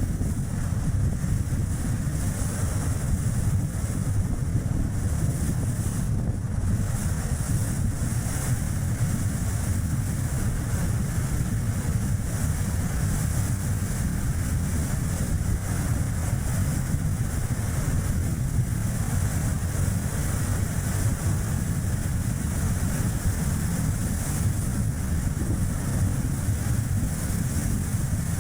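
Strong wind buffeting the microphone over the steady road and tyre noise of a Chevrolet Spark driving along, a continuous low rumble with a hiss on top.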